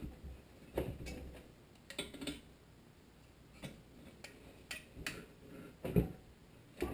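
Torque wrench and socket on the cylinder-head bolts of a Tecumseh HSK70 engine: a handful of separate sharp metal clicks at irregular intervals, the loudest about six seconds in, as the bolts are brought up to 200 inch-pounds.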